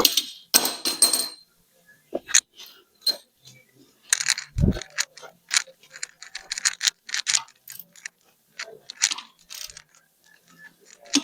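Wrenches and metal transmission parts clinking and clanking during work on a John Deere tractor transmission: a run of sharp metallic clicks and knocks, with a ringing clank near the start and a dull thump about four and a half seconds in.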